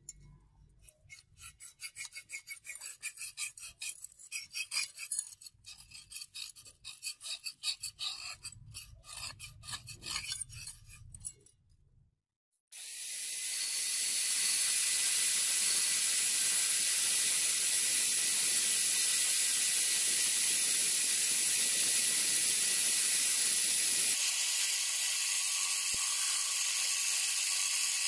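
A small hand file scraping on the steel cleaver blade beside the brass bolster in quick back-and-forth strokes for about twelve seconds. After a short break, a handheld rotary tool with a small bit starts and runs steadily against the blade.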